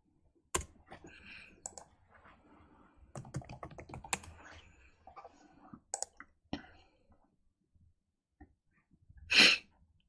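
Computer keyboard typing in short runs of keystrokes, with a few separate single clicks. Near the end comes one brief, louder hiss-like burst.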